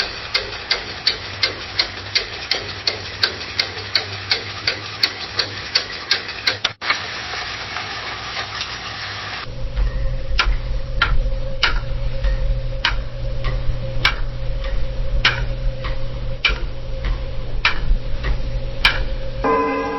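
Clocks ticking: first a fast tick of about three a second, then, after a brief hiss, a slower, different clock ticking over a low hum. A ringing tone starts just before the end.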